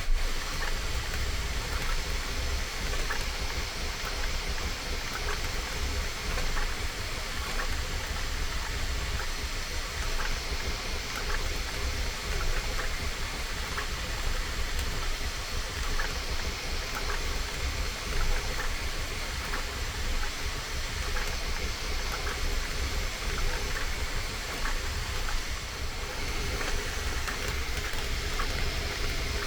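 Bambu Lab A1 Mini 3D printer printing at full speed: a steady whir of fans and motors with faint, irregular quick ticks as the print head moves.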